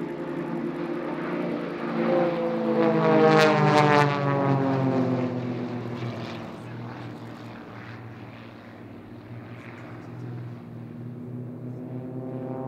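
A formation of four large radio-controlled Extra 300-type aerobatic model planes, their propeller engines running. They pass close overhead about three to four seconds in, with the engine note dropping in pitch as they go by, then fade and build again near the end.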